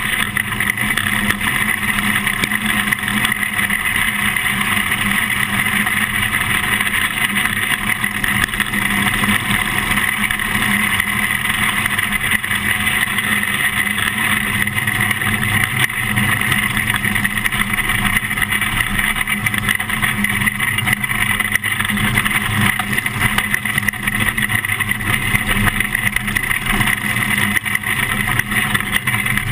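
Engine of a winged dirt-track racing car running hard at racing speed, heard from onboard the car as a loud, steady drone.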